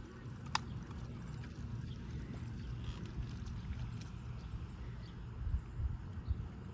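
Wind buffeting the microphone: a low, uneven rumble with a few gusty thumps near the end, and one sharp click about half a second in.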